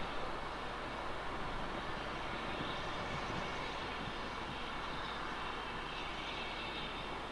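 Steady rushing roar of steam escaping from the steam locomotive Twizell, standing at the platform under a thick cloud of steam.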